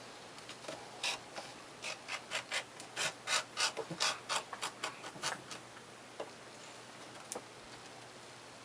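A run of short scraping strokes of a hand tool on leather, about two to three a second for some four seconds, followed by a couple of single clicks.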